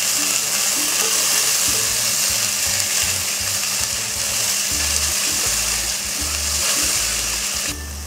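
Chopped onions, green chillies and capsicum sizzling in hot oil in a steel pot as they sauté, with a spatula stirring through them; the sizzle cuts off suddenly near the end. Soft background music with low bass notes runs underneath.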